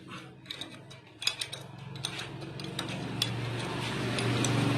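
Light metallic clicks and taps of tools and parts on the valve train of a Kawasaki TMX155 engine as a new rocker arm is fitted in place of a broken one. A low steady hum grows louder through the second half.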